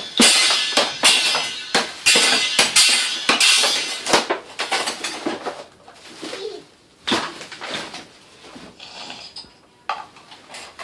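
Rapid, irregular banging and clattering with a bright ringing jingle. The hits are loud for about the first five seconds, then come sparser and quieter.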